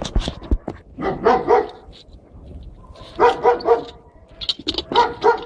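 A dog barking in quick runs of three short barks, three runs in a row.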